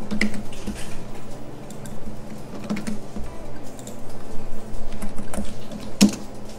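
A few scattered clicks of a computer keyboard and mouse, the sharpest about six seconds in, over a low steady hum.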